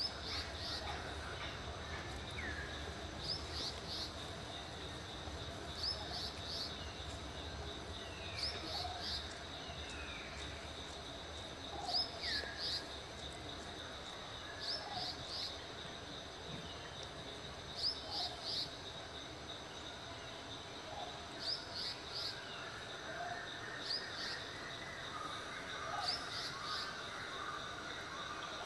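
Forest ambience: a bird repeats a short, high call of three or four quick notes every two to three seconds over a steady, high insect drone, with a few lower, falling calls in between.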